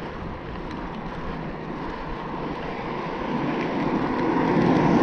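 Steady rushing road noise while riding a bicycle along a road, growing louder toward the end, with a faint steady whine underneath.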